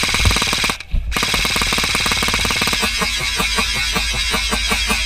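Airsoft electric gun firing on full auto, a rapid rattle of shots with a brief break about a second in. From about three seconds in it gives way to a slower, evenly spaced clicking.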